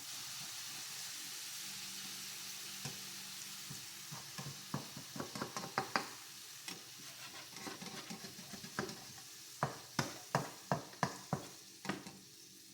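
Quesadilla frying in a pan with a steady sizzle, and a utensil tapping and scraping against the pan from about four seconds in, with a quick run of taps near the end.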